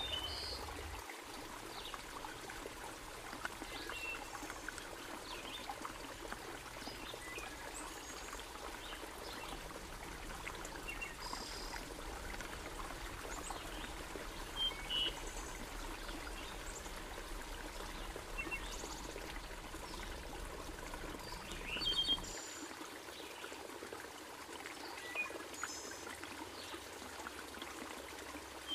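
Steady running water of a woodland creek, with a few short high chirps over it.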